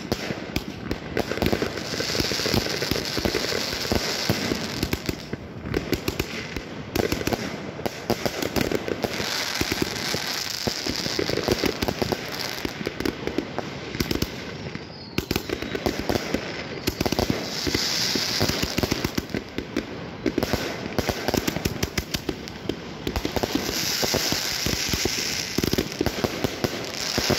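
Piromax Axion (PXB3933) firework battery firing shot after shot in quick succession, with dense popping and crackling from the bursts that never pauses. Several times it swells into denser, hissing crackle.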